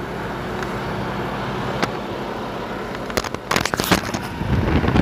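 Travel trailer's rooftop air conditioner running on high cool, a steady rush of air from the ceiling vent. A few sharp clicks and crackles come past the middle, and near the end the blowing air hits the microphone as a louder low buffeting rumble.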